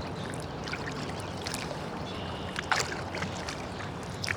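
Kayak paddle dipping and dripping on river water, with a few small splashes, the clearest about two-thirds through and at the very end, over a steady low hum.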